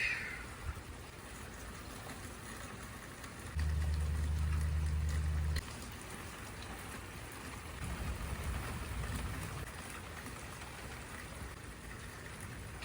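Steady rain falling in a thunderstorm. Near the middle a loud low drone starts and stops abruptly after about two seconds, and a few seconds later comes a softer low rumble of thunder.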